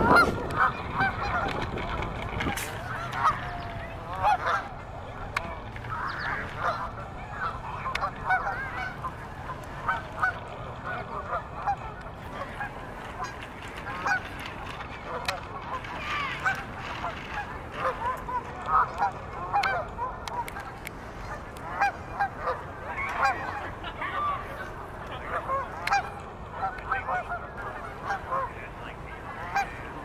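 A flock of geese honking: many short calls overlapping one another without a break.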